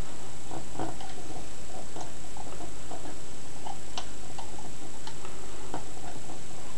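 Small irregular metallic clicks and ticks of a lock pick and tension wrench working the pins of a small sliding display-cabinet lock, over a steady background hum.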